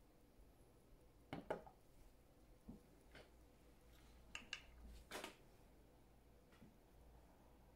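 Several small, sharp clicks and light taps from a metal watch case and its crystal being handled, spread unevenly over otherwise near silence.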